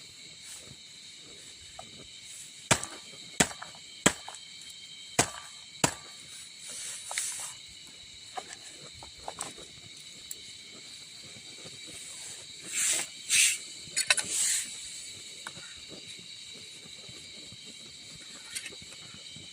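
Steady chorus of forest insects trilling, several high notes held together. Over it come five sharp knocks, about two-thirds of a second apart, and short hissy rustling bursts, the longest near the middle and a cluster a little later.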